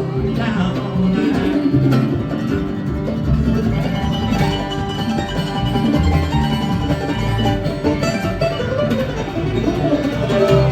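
Live string band playing bluegrass-style music: an instrumental passage of plucked strings over a steady bass line.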